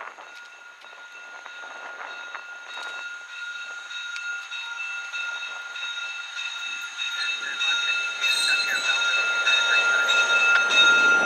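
VIA Rail F40PH diesel locomotive approaching, its engine and wheels growing steadily louder, over a steady high-pitched whine. Brief wheel squeals come in near the end.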